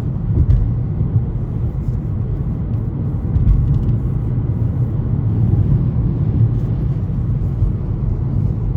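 Steady low rumble of a car cabin: engine and road noise.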